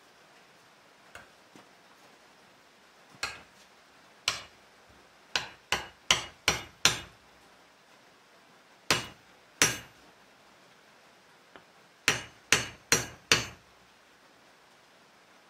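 Sharp knocks of a hatchet's wooden handle being rapped against a steel block to seat the head on the handle. There are two single knocks, then a quick run of five, two more, and a closing run of four.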